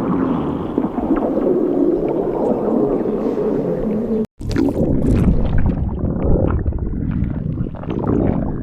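Human stomach growling with long, wavering, moan-like rumbles. After a split-second cut about halfway through, a deeper growl with many short gurgles follows.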